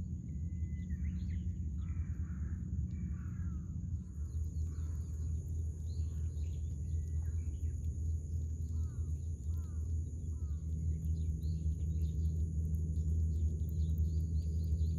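Outdoor ambience: a steady low rumble with a steady high whine over it, and bird calls: a few harsh calls in the first three seconds, three short falling chirps about nine seconds in, and a fast ticking trill near the end.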